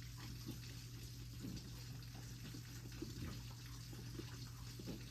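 Goat kid sucking milk from a bottle: irregular soft wet sucking and swallowing sounds over a steady low hum.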